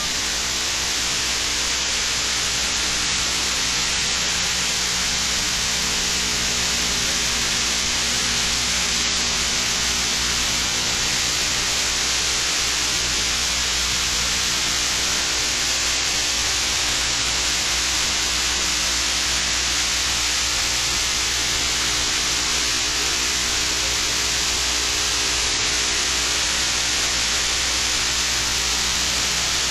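Steady static hiss with a faint low hum under it, from a TV's audio fed into a computer's microphone input.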